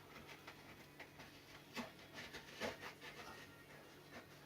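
Faint scraping and a few small clicks of a blade cutting through tacky, part-cured fibreglass cloth along a surfboard rail.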